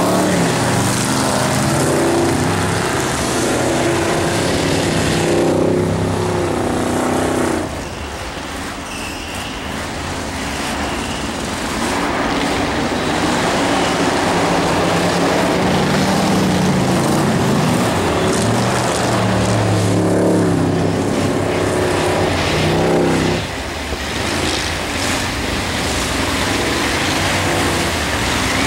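Engines of rear-wheel-drive ice-racing cars revving hard under full throttle, their pitch climbing as they race on the ice track. The engine sound drops off suddenly about a quarter of the way in and again near the end, then builds back up.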